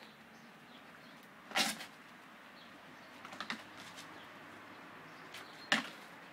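Brief scuffs and knocks from a Belgian Malinois leaping and landing on a concrete yard: one about a second and a half in, a quick cluster midway, and a sharp one near the end.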